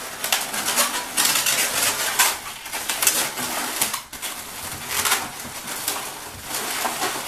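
Latex modelling balloons squeaking and rubbing against each other, with many short squeaks, as a balloon flower is twisted into the centre of a bunch of balloon flowers.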